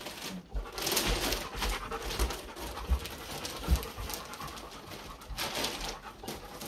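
Clear plastic wrapping on a new dog bed rustling and crinkling as it is pulled and cut open, with a Hungarian Vizsla panting and sniffing close by.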